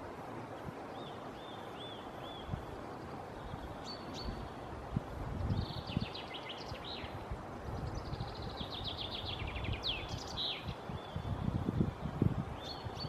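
Black woodpecker chiselling out a nest hole, a run of irregular dull knocks into wood. Small songbirds sing over it: short repeated chirps near the start and end, and two trilled songs in the middle.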